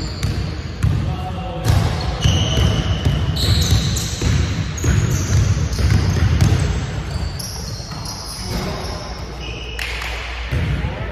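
Pickup basketball on a hardwood gym floor: a basketball dribbling and bouncing in repeated thuds, with sneakers squeaking in short high chirps, all ringing in a large gym hall.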